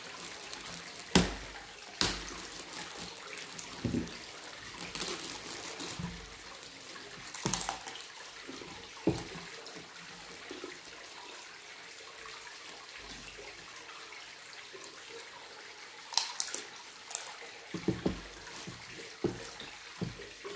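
Eating and food-handling sounds: a plastic spoon and plastic tub clicking against a plate while sambal is spooned out, then fingers mixing rice with squid sambal. Scattered sharp clicks and taps, with a quieter stretch in the middle.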